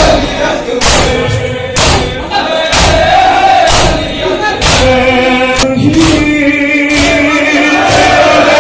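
Men's voices chanting a noha lament, with a crowd of men beating their chests in unison: a heavy slap about once a second keeping the rhythm.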